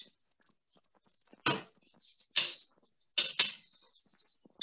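Pieces of marinated chicken dropped one at a time into a smoking-hot wok of sesame oil, each hitting with a short sizzle. There are about four sizzles, the last two close together, and silence cuts in between them as the sound comes through a video call.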